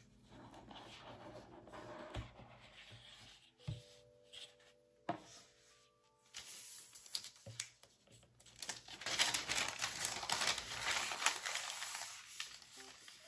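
A cardboard gift box lid rubbing and sliding off, then tissue paper crinkling loudly for a few seconds as it is folded open around a notebook. Soft acoustic guitar music plays under it.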